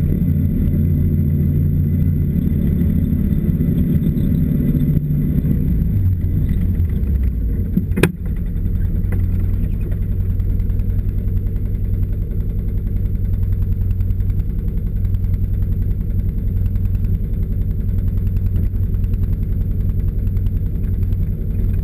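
Snowmobile engine running, with higher revs at first as the sled slows. It settles into a steady idle after one sharp click about eight seconds in.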